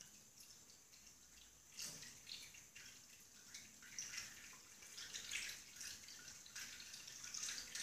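Thin stream of water from a tap running into a ceramic sink basin, with irregular splashes and drips as a cat plays in the stream. Faint, growing louder near the end.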